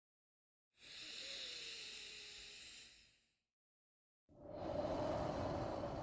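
A person breathing slowly, one breath at a time. A hissy, airy breath comes in about a second in and lasts over two seconds. After a second of dead silence, a fuller, lower breath starts a little after four seconds in.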